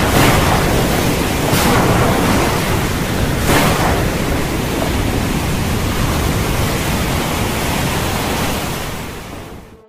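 Storm ambience sound effect: a dense, steady rushing noise of wind and weather, with short louder surges about a second and a half and three and a half seconds in, fading out near the end.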